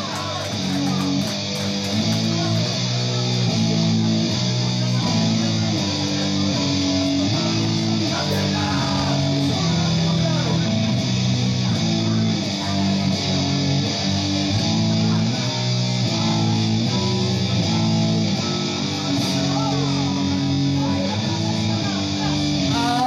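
Rock music led by electric guitar over bass, playing a steady chord progression that changes about once a second.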